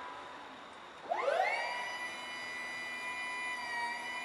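Linde N20 Li electric pallet truck's hydraulic lift motor starting about a second in with a rising whine. It settles into a steady whine as the forks lift.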